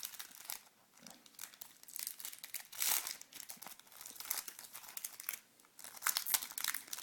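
Football trading card pack wrapper being torn open and crinkled by hand, in irregular crackles, loudest about three seconds in.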